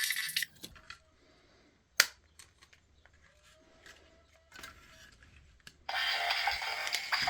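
Small clicks and knocks of plastic parts being handled, with a sharp click about two seconds in. About six seconds in, tinny music starts playing from a small speaker with no bass, as from the toy DJ robot.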